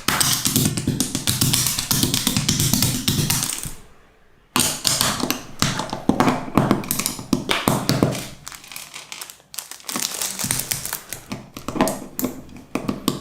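Fast, irregular plastic clicks and taps of construction-toy bricks snapping together, breaking off briefly about four seconds in and then resuming.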